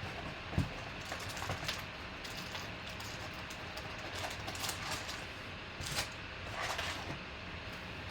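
A trading-card box and its foil packs being handled and opened: scattered light crinkles, rustles and small clicks of packaging, with a few sharper ticks, over a steady background hiss.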